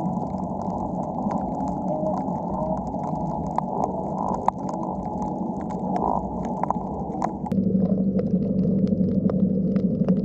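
Muffled underwater sound picked up by a 360 camera below the surface: a steady low rushing noise with many scattered sharp clicks. About seven and a half seconds in, the higher part drops away and a steady low hum stands out.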